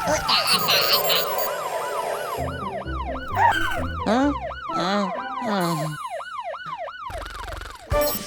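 Cartoon siren whooping in quick rising-and-falling sweeps, about two to three a second, over background music with cartoon sound effects. It breaks off about six seconds in.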